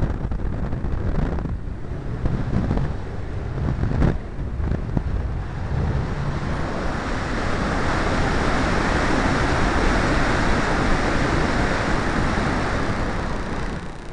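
Air rushing over the microphone of a camera mounted on an electric RC glider in flight: a steady hiss that builds about six seconds in and eases just before the end.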